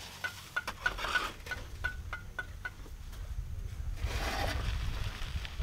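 Clay bricks being set into a metal wheelbarrow, with a short scraping clunk about four seconds in. Before it comes a run of short, evenly spaced high ticks, about three a second, that fade out about halfway through.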